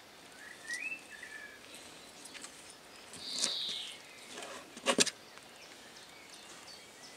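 Chef's knife slicing through a grilled pork neck steak on a plastic cutting board: a short scraping rasp near the middle, then two sharp knocks as the blade meets the board about five seconds in. A bird chirps briefly about a second in.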